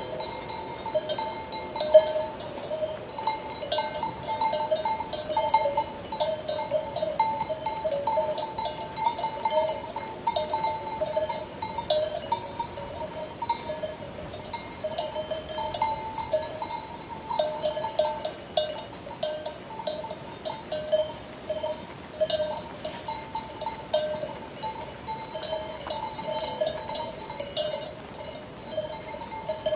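A sheep bell clanking unevenly, several strikes a second, each ringing in two steady low tones with lighter high clinks. One sharper strike about two seconds in.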